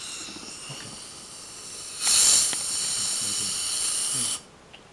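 Dental equipment at the chair giving a high-pitched hiss with a whistling tone, quieter at first, much louder from about two seconds in, then cutting off suddenly about half a second before the end.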